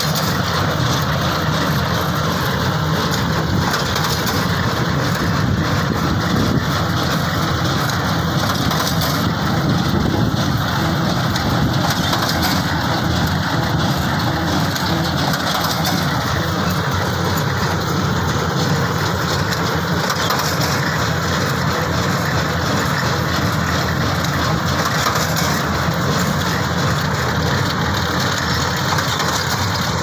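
Massey Ferguson 9500 tractor running under load, driving a small square baler as it picks up and compresses straw into bales, a steady mechanical noise.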